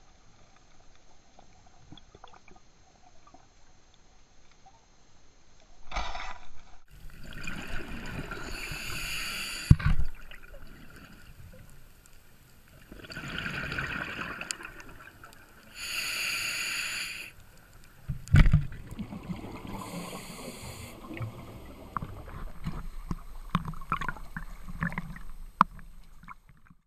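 Scuba diver breathing through a regulator underwater: bursts of exhaled bubbles every few seconds, with a couple of sharp knocks.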